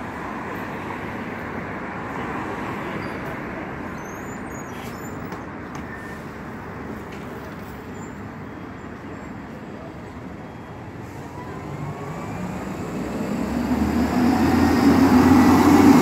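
Steady street traffic noise, with the electric bus at the stop quiet. From about twelve seconds in, a second city bus, believed to be a diesel, pulls up close: its engine grows loud with a rising pitch and is loudest near the end.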